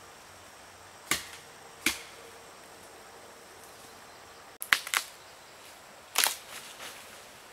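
Dry dead branches being snapped by hand, each one a sharp crack. There is a single crack about a second in and another a second later, a quick cluster of cracks a little past halfway, and a last loud crack near the end followed by softer crackling and rustling.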